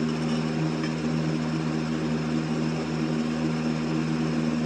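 Steady, unchanging machine hum with a few low steady tones.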